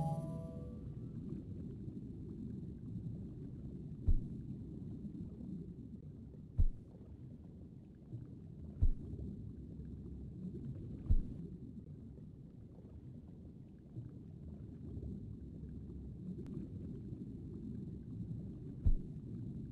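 Low, steady underwater rumble from the website's water-theme ambient sound, with a soft low thump every few seconds, five in all, as photos are clicked open.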